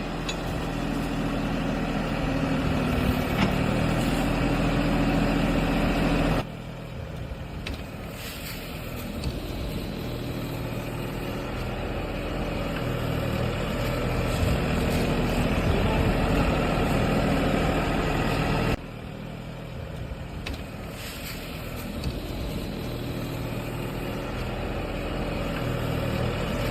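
Mini excavator engine running steadily while working a rotary drill (auger) attachment. The sound drops abruptly twice, about six and nineteen seconds in, then builds back up.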